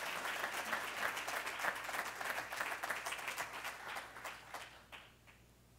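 Audience applause: many people clapping densely, thinning out and dying away about four to five seconds in.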